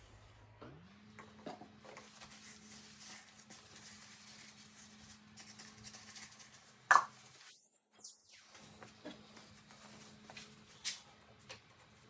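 Small clicks, taps and rustles of hand tools and metal parts being handled, with one sharper click about seven seconds in, over a steady low hum.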